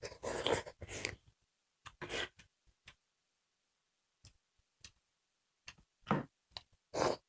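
Close-up eating sounds, slurping and chewing, in a few short bursts: a cluster of about a second at the start, one about two seconds in, and two more near the end.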